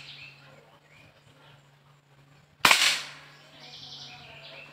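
A single sharp shot from a homemade .25-calibre (6.35 mm) PCP air rifle, about two-thirds of the way in, dying away within half a second.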